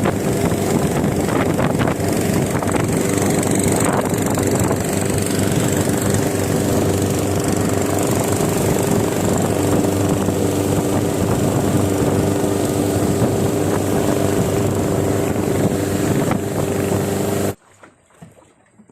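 Boat engine running steadily while under way, with a rush of wind and water; the sound cuts off abruptly near the end.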